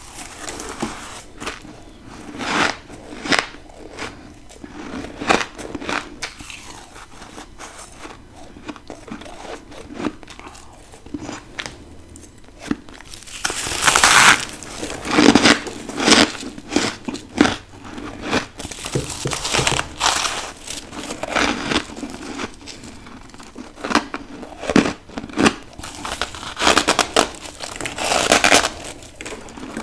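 Freezer frost and ice being bitten and chewed: irregular crisp crunches, with busier runs of bites about halfway through and again near the end.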